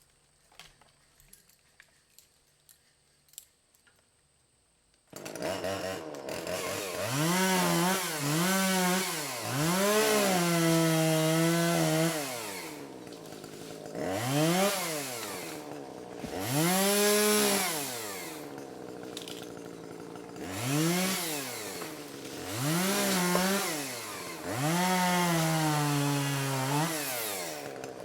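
A few faint clicks, then about five seconds in a two-stroke chainsaw cuts in abruptly and revs up and down again and again, its pitch rising and falling with each cut as it fells and bucks small trees.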